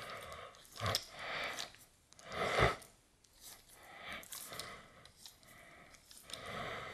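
Hands screwing the coil retainer spring onto the barrel of a Central Pneumatic air hammer: several short bouts of metal scraping and rubbing as the spring is twisted on, with one dull knock about two and a half seconds in.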